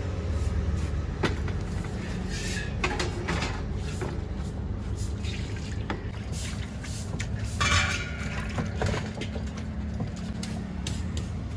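Clatter of dishes and utensils knocking and scraping, over a steady low rumble of road traffic, with a louder burst of clatter about eight seconds in.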